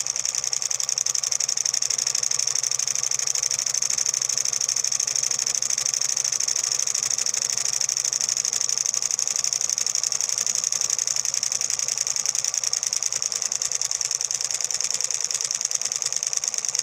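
Small homemade solenoid engine running, its magnet plunger pulled into the coil by a two-transistor blinker circuit on a 1.5-volt AA cell and turning a cardboard flywheel, with a fast, even clicking.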